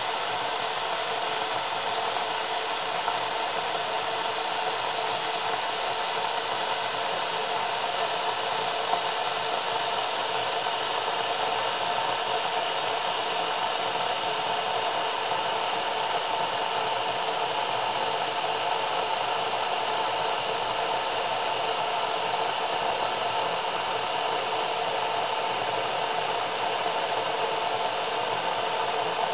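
Sinbo SCM 2922 electric Turkish coffee pot heating its contents to about 85 °C: a steady hiss, the sound of the liquid nearing the boil.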